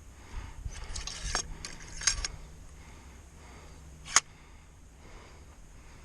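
Small handling noises from working muzzleloader loading components by hand: a spell of rustling and scraping about a second in, then one sharp click about four seconds in.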